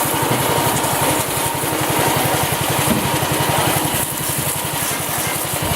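An engine running steadily at a constant speed, with an even, rapid low chugging pulse.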